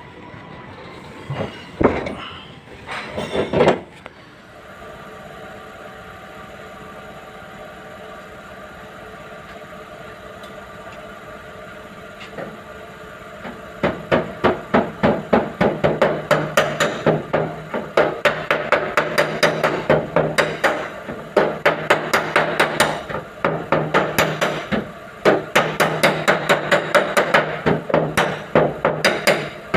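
Hammer blows on a car's sheet-metal rear door, panel beating out dent damage. About halfway in, a long run of quick strikes begins, roughly two or three a second, with the panel ringing between them.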